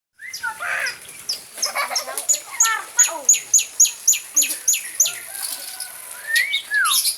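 Long-tailed shrike (cendet) singing a varied, chattering song. In the middle comes a rapid run of sharp, downward-sliding notes, about three to four a second, and near the end a rising-then-falling whistled note.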